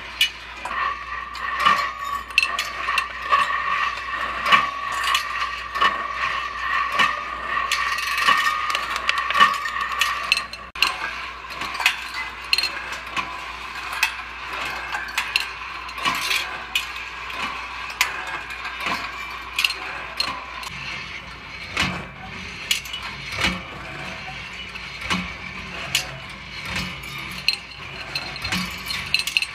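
Rolling ball sculpture running: 1/4-inch chrome steel balls rolling and clicking along stainless steel wire tracks while its gear-and-chain lift mechanism turns, giving a continuous patter of small metallic clinks. A steady high ringing tone runs through the first ten seconds or so, and a low hum comes in about two-thirds of the way through.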